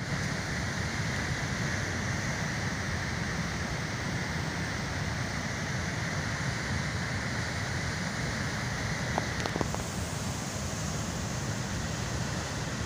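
Floodwater gushing through a dam spillway: a steady, unbroken rush of white water.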